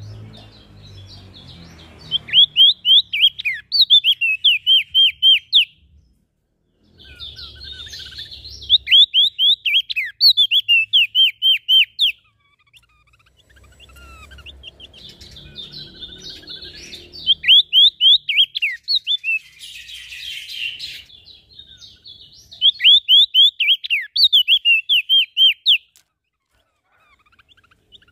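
Small songbird singing loud, rapid phrases of about ten steep, sweeping whistled notes, four times with short pauses between, over quieter twittering.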